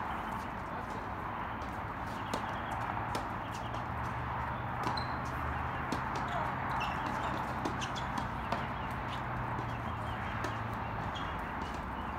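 Tennis rally heard from a distance: sharp pops of the ball coming off racket strings and bouncing on the hard court, about a second or two apart and irregular, over a steady outdoor hiss.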